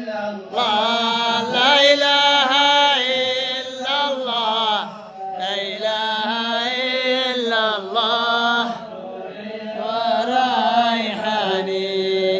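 A solo voice chanting a devotional mawlid in long, wavering, ornamented phrases, with short pauses between them.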